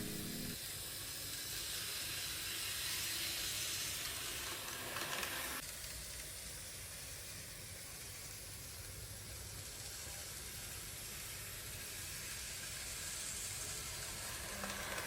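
N-gauge model electric car on a Bernina motor unit running along the track: a faint, steady hiss-like whir, a little louder for the first five or so seconds.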